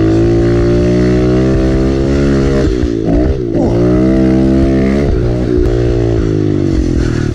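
Kawasaki KLX pit bike's single-cylinder engine running hard under the rider, held at steady revs with the pitch dipping and climbing back about three seconds in and again about five seconds in as the throttle is eased and rolled on.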